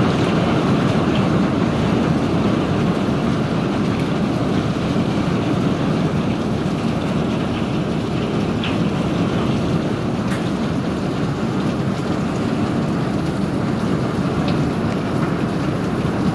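Hail and rain falling steadily onto a lawn and garden, a dense, even patter of countless small impacts with a few sharper ticks now and then.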